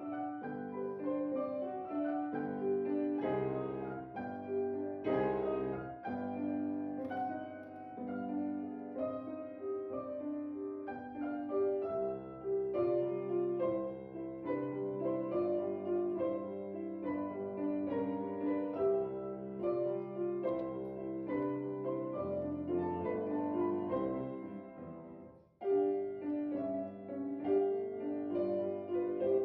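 Background piano music playing steadily, breaking off briefly about 25 seconds in and then going on.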